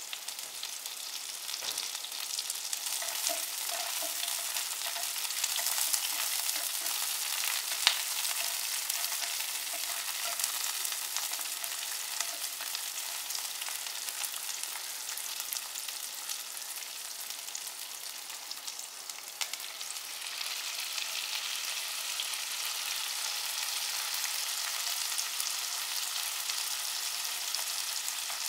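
Sliced onions and curry leaves sizzling in hot oil in a pan, stirred with a wooden spatula, with one sharp tap about a quarter of the way in. The sizzle gets louder about two-thirds of the way through.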